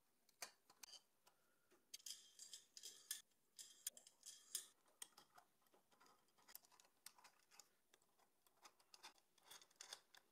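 Near silence with faint metallic clicks and scrapes of a hex key turning bolts through an acrylic plate into aluminium extrusion. The clicks are scattered and busiest a few seconds in.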